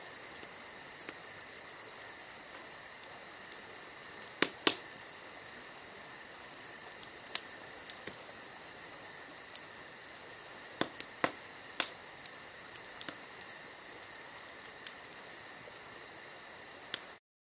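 Crickets or katydids singing steadily in a high pitch in the woods, broken by scattered sharp clicks and taps.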